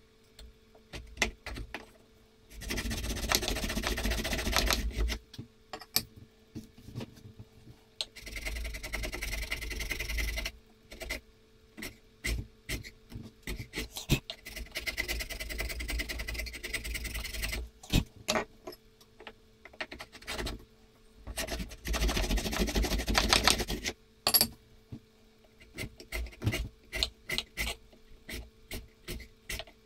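Steel chisel paring and scraping wood inside the throat of a wooden hand-plane body: three stretches of steady scraping, each two to three seconds long, with many short scrapes and taps between them.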